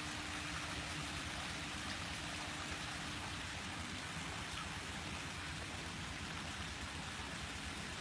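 Steady splashing and bubbling of water from an aerator or hose outlet at the surface of a goldfish pond.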